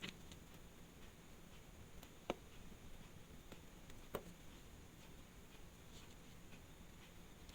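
Near silence broken by a few small sharp clicks, two plainer ones a couple of seconds apart, as tools handle the parts of a quartz watch movement.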